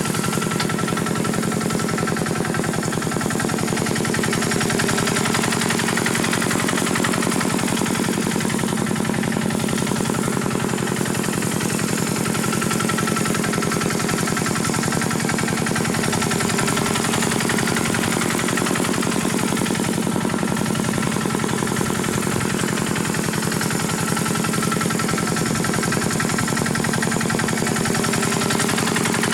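Single-cylinder diesel engine of a Khmer farm tractor running steadily, with a fast, even firing beat.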